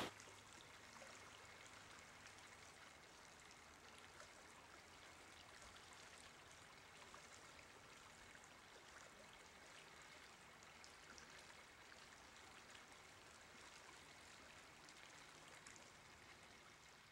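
Faint, steady rush of distant running water, with scattered small ticks and clicks.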